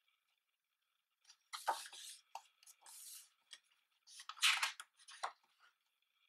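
Pages of a paper photo book being turned and pressed flat by hand: a run of short paper rustles and swishes in two clusters, the second the loudest.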